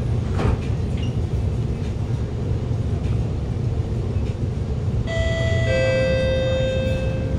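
Steady low rumble inside an Alstom Movia R151 metro car. About five seconds in comes the train's two-note falling chime, the lower second note held longer; it is the chime that comes before the next-station announcement.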